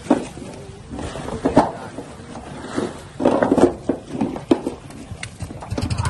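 Irregular knocks and wet slaps as fish are handled and dropped into plastic crates on a boat deck, a cluster of them about three seconds in.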